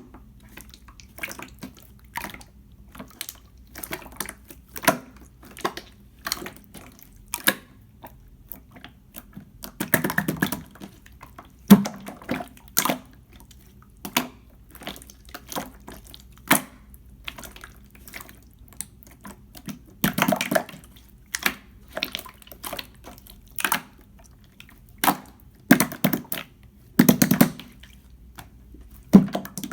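Clear slime being squeezed and worked by hand: irregular wet clicks and pops, with a few longer squelching runs about ten, twenty and twenty-seven seconds in.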